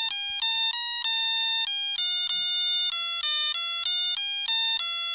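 Dear Santa musical Christmas light set's controller box playing a tune through its small built-in speaker: a single line of buzzy electronic beeping notes, several notes a second, like a music-box chip.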